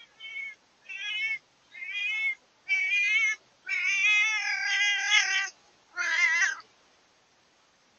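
Domestic cat yowling: a series of about six drawn-out meows with a wavering pitch. The meows grow louder and longer, the longest in the middle of the series, then stop.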